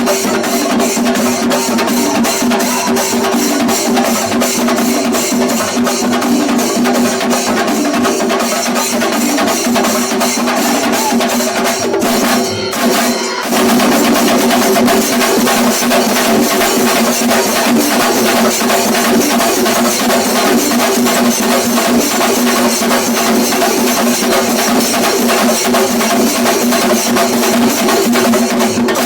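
Singari melam: a group of chenda drums beaten in a fast, driving rhythm with ilathalam cymbals clashing on the beat. The playing thins out briefly about twelve seconds in, then carries on.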